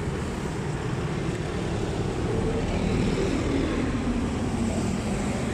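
Passing road traffic: a steady drone of motor vehicles and tyre noise that swells a little around the middle as a vehicle goes by.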